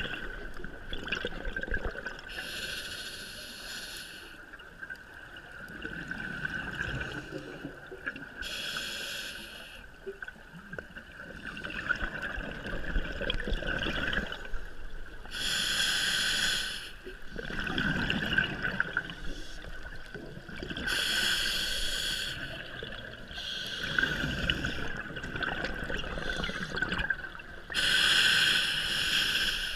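Scuba diver breathing through a regulator underwater: a loud rush of exhaled bubbles about every five to six seconds, with a steady high tone underneath.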